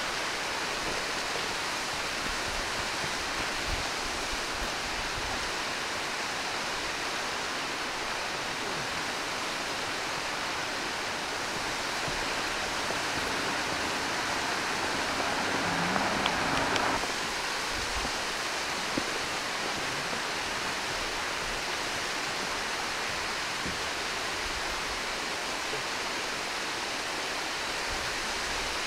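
Steady rushing hiss of falling water from a waterfall. It swells louder for a second or so about halfway through.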